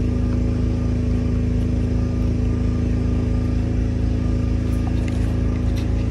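A steady low machine hum with a constant droning tone, like a motor or engine running, with a few light clicks near the end.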